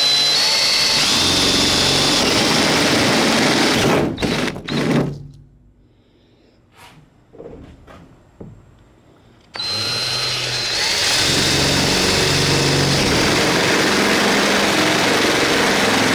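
Cordless drill with a twist bit of about a quarter inch boring guide holes through a Jeep TJ's sheet-metal hood, its motor whining steadily. One long run stops about four seconds in and is followed by two short bursts. After a pause a second long run starts a little past halfway.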